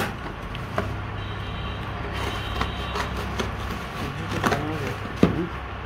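Scissors cutting through packing tape and cardboard on a shipping box: a few scattered snips and scrapes over a steady low hum.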